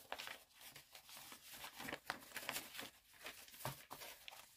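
Faint rustling and light ticks of paper as a page of a spiral planner is flipped and handled.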